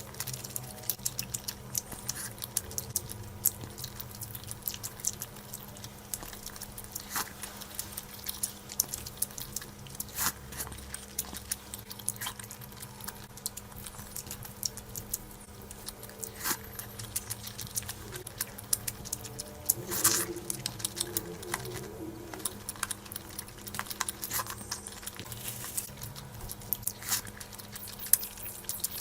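Close-miked eating sounds: rapid wet clicks and smacks of chewing on curry and rice, over a faint steady hum.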